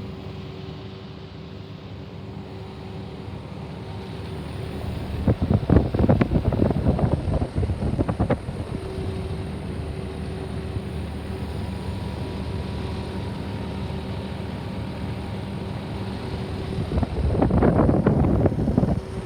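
Steady hum of running refrigeration and air-conditioning machinery, with a constant low drone and a faint steady tone. Twice, about five seconds in and near the end, a few seconds of louder gusty rumble from wind on the microphone.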